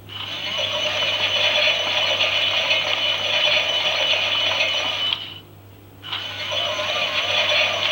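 Toy Klein Miele washing machine's small motor whirring and rattling as it turns the drum, its pitch wavering. It stops for about a second around five seconds in, then starts turning again: the stop-start drum action of a wash cycle.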